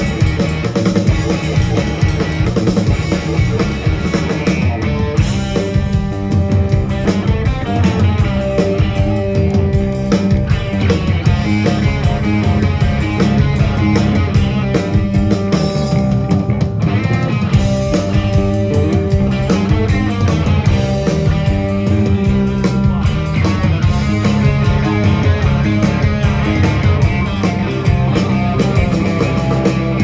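A live rock band playing loudly through the PA, with electric guitar, bass guitar and a drum kit, heard from within the audience.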